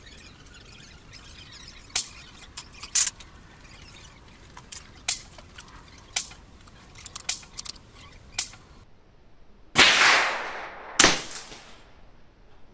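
Gunfire on a shooting range: scattered sharp cracks and clicks, then two much louder shots about a second apart near the end, the first trailing off in a long echo.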